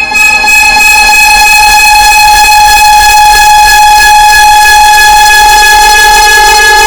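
The 'dun dun dun' dramatic sound effect layered on itself a huge number of times, merged into one very loud, steady, distorted tone with many overtones and a low rumble beneath, held without a break.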